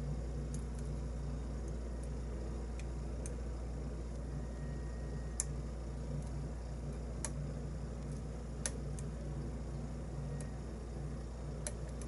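Scattered small sharp clicks, a few of them louder, from lock picks working the pins of a brass challenge lock cylinder, over a steady low hum.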